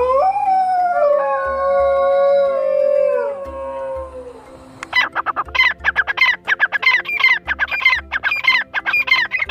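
A canine howling: one long howl that swoops up at the start, holds, then slides down and fades at about four seconds. From about five seconds a fast run of short bird calls follows, roughly three or four a second. Background music with a steady low beat runs underneath.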